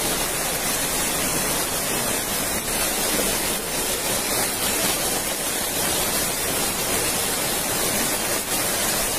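Muddy floodwater surging in a torrent down a street, a steady rushing noise.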